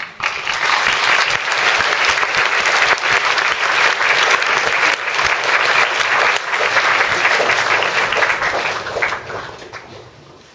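A large seated audience applauding, starting all at once and dying away near the end.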